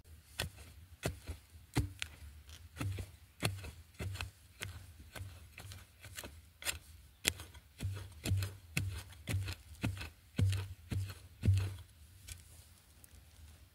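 Flat steel digging blade chopping repeatedly into earth and roots, a little under two strikes a second, stopping about twelve seconds in.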